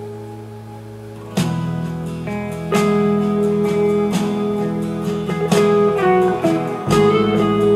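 Guitar music played back through Pioneer SP-BS22-LR bookshelf speakers driven by an Elekit TU-870 tube amplifier: a held chord fades, then plucked notes and chords begin about a second and a half in and carry on.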